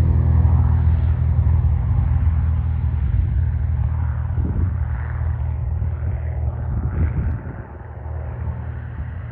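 A loud, low engine rumble with steady tones, slowly fading and dropping off sharply about seven and a half seconds in.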